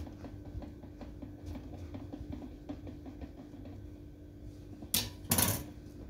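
Knife sawing horizontally through a chocolate sponge cake, a run of faint soft scraping strokes. About five seconds in comes a sharp knock, then a brief louder clatter.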